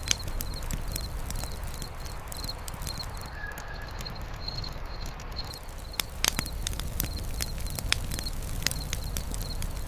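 Campfire crackling, with irregular sharp pops over a low steady rumble, while a high chirp repeats evenly about three times a second, an insect calling.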